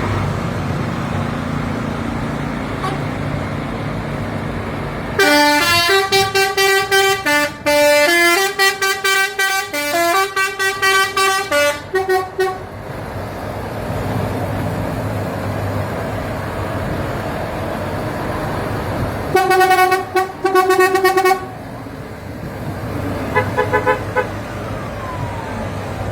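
A multi-note musical vehicle horn plays a tune of stepped notes for about seven seconds, sounds again in a few short blasts about twenty seconds in, and faintly once more near the end, over a steady engine rumble.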